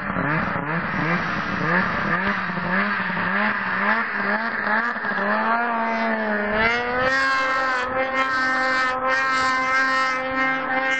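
Snowmobile engine running, its pitch rising and falling with the throttle, then climbing and holding at a steady high pitch about two-thirds of the way through.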